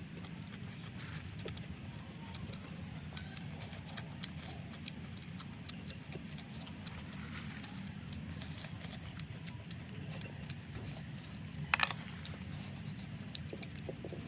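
Eating sounds close to the microphone: many small, irregular clicks and crunches of chewing, with a louder cluster near the end, over a steady low hum.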